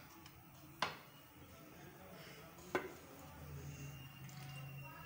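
Metal ladle serving thick curry from a metal pot onto a plate: two sharp clinks of the ladle against the pot, about a second in and near three seconds in, with faint dripping and slopping of gravy. A low steady hum comes in a little past the middle.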